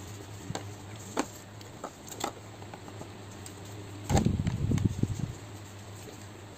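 Close-miked eating sounds: chewing of instant noodles with a few light clicks of a metal spoon and fork. About four seconds in comes a louder, rough spell of close mouth and handling noise, all over a steady low hum.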